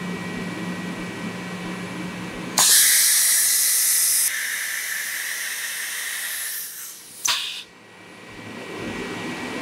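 CNC drilling machine's automatic tool change at a rack-style tool holder. A steady machine hum runs first, then about two and a half seconds in a sudden loud blast of compressed air from the spindle's pneumatic tool release hisses for a second or two and tails off more quietly. A second short air blast comes about seven seconds in, as the tool is swapped.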